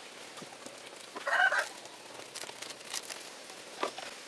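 Resin brush dabbing wet fibreglass mat, a scatter of soft taps and scrapes. About a second in comes a brief, louder pitched call, the loudest sound here.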